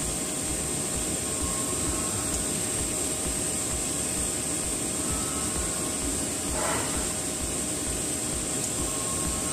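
TIG welding arc on stainless steel pipe at about 180 A, a steady hiss during the root pass, with one brief rasp about two-thirds of the way through.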